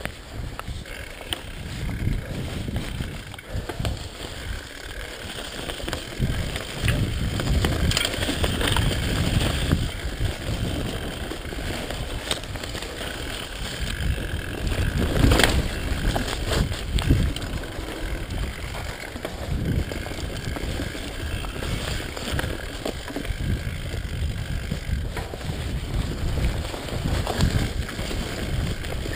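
Mountain bike descending a rough dirt singletrack: a continuous rumble and rattle of the tyres and bike over the trail, with wind on the microphone. A sharp knock comes a little past halfway.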